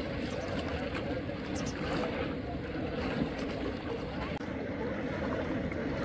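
Steady rushing of a river flowing past a bouldered bank.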